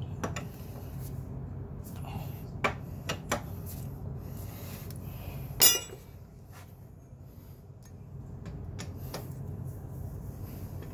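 Metal clinks and clanks of a socket wrench and extension working the oil drain bolt on a scooter's engine, with one loud clank about halfway through, over a steady low hum.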